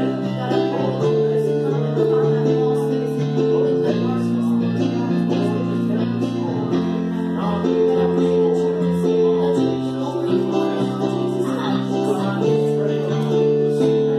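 Live church music: held keyboard chords changing every second or two, with a woman singing over them.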